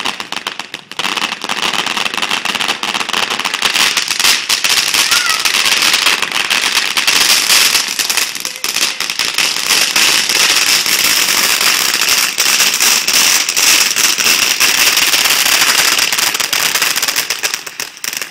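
Shower (fountain) firework spraying sparks: a steady crackling hiss full of tiny pops that starts about a second in, holds for over fifteen seconds and eases off near the end.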